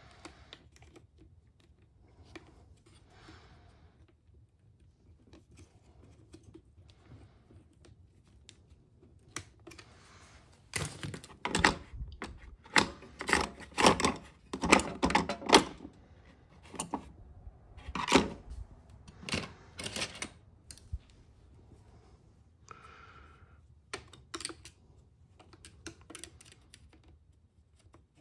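Hand tools and small plastic and metal RC-truck parts clicking and clattering as they are handled during disassembly. A dense run of quick clicks and knocks starts about ten seconds in and lasts about ten seconds, with a few more clicks near the end.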